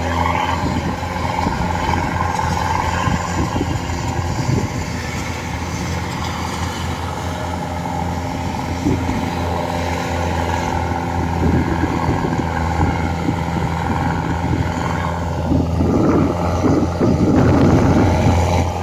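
Kubota DC-105X rice combine harvester running steadily under load while cutting rice: a constant low engine hum with an irregular crackle over it that grows louder near the end.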